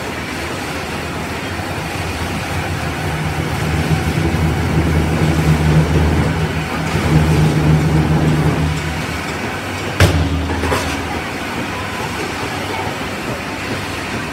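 Spindleless veneer peeling line running, a steady low machine hum that swells louder for several seconds in the middle. A single sharp metallic clank about ten seconds in.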